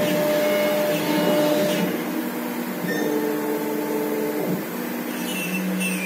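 A 1325 CNC router with a 5.5 kW spindle running a cut: a steady machine noise with several humming tones that step to new pitches every second or two as the axis motors change speed and direction.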